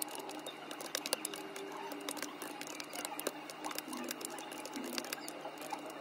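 Fingers tapping quickly on the keys of a desktop calculator: an uneven run of light plastic key clicks, several a second.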